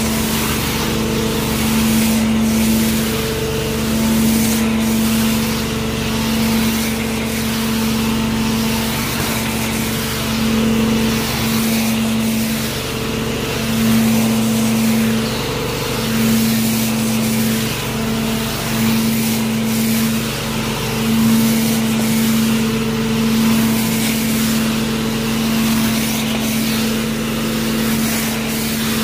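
Carpet-cleaning extraction machine running, its vacuum motor giving a steady humming drone with hiss. The wand is pushed back and forth over a concrete floor, and the sound swells and eases every couple of seconds with the strokes. The hum drops out briefly now and then.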